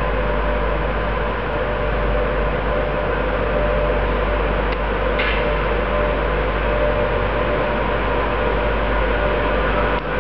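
Pair of Freightliner class 86 electric locomotives drifting slowly into the station: a steady hum with a faint held whine from the locomotives' motors and equipment.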